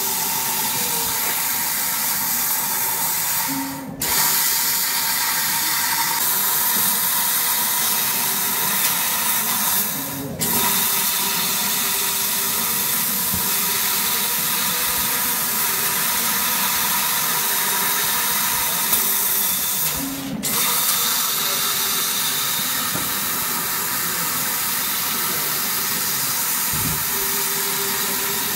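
LXJ1325 laser cutting machine with a rotary tube chuck cutting a round metal tube: a loud, steady hiss with a faint hum underneath. The sound drops away for a moment three times.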